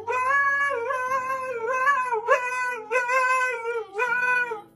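A husky howling in a sing-song way: about four long, wavering phrases whose pitch slides up and down, stopping shortly before the end.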